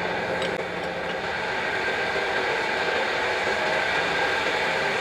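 Steady mechanical hum with a few faint held tones over a low rumble, like a ventilation or air-conditioning unit running in a workshop.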